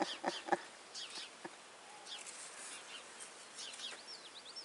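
Faint outdoor birdsong: scattered short, high chirps and whistled notes from small birds. A few soft knocks sound in the first half-second.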